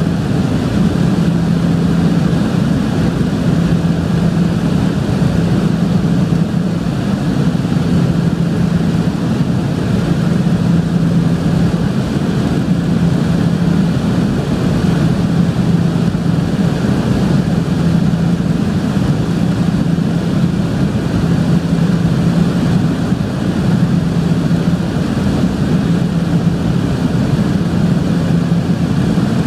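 Cabin noise of a de Havilland Canada DHC-6-300 Twin Otter in flight: the steady drone of its twin turboprop engines and propellers, with a low hum that swells and fades every couple of seconds.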